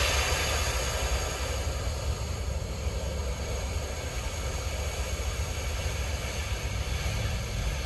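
Compressed air venting from a truck's air brake system with a long hiss that started sharply and fades gradually, over a low steady rumble.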